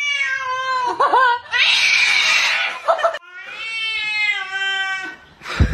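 A cat yowling in two long, wavering howls, with a hiss between them, and a short knock near the end.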